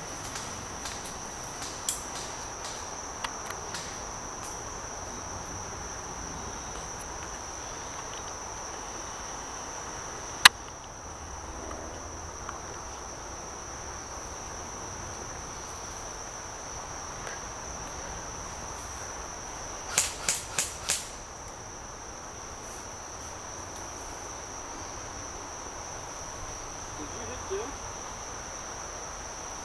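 Crickets trilling steadily on one high note. A single sharp airsoft gun shot cracks about ten seconds in, and a quick string of four shots comes about twenty seconds in.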